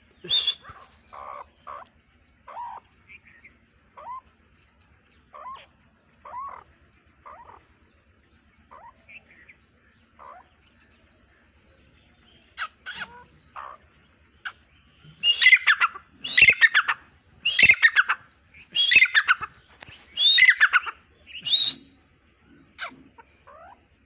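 Grey francolins calling: soft, short clucks about once a second, then, from about the middle, a run of five loud, harsh calls at roughly one-second intervals.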